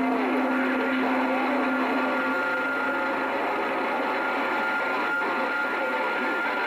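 CB radio receiver hissing with static and garbled, overlapping distant transmissions. A steady whistle runs throughout, and a low steady tone stops about two and a half seconds in.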